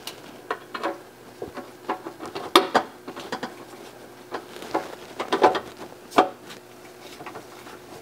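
Screwdriver and screw clicking and scraping against a sheet-metal way cover on a Haas CNC mill as the cover panel is screwed back on: a dozen or so irregular metallic clicks and clinks, the sharpest about two and a half and six seconds in, over a faint steady hum.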